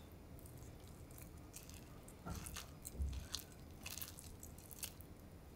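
Wooden spoon stirring and fluffing freshly cooked rice in a camping pot: faint soft squishing and light scraping, with a few small clicks and a low knock against the pot in the second half.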